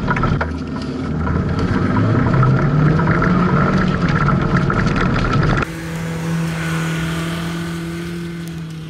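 BMW E36 Compact's engine revving hard, its note rising and falling as the car is thrown into slides. A little over halfway through, the sound cuts to the engine held at steady high revs while the rear wheels spin in the dirt; the steady note slowly fades under a hiss.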